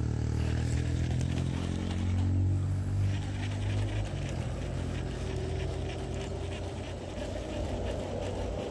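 Baitcasting reel being cranked to reel in a hooked fish: a low whirring hum from the reel's gears that eases off about four seconds in, followed by lighter clicking and rustling.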